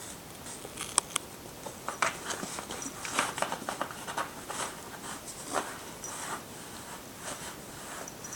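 A cat scratching, rubbing and gnawing at a scratcher dusted with silver vine powder: irregular short scratchy strokes and sharp clicks, busiest a few seconds in.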